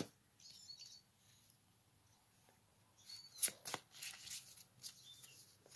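Pokémon trading cards from a freshly opened booster pack being handled and slid through in the hands: faint at first, then a few sharp card snaps about three and a half seconds in, followed by light rustling.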